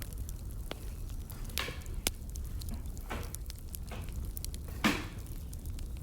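Firewood burning in a fire, crackling with scattered sharp pops and short snaps over a low steady rumble. The loudest snap comes just before the end.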